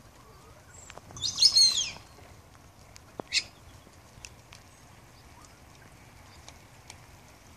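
High-pitched bird chirps: a loud burst of twittering calls about a second in, then one short high call about two seconds later. Under it a steady faint hiss of rain with scattered ticks of dripping water.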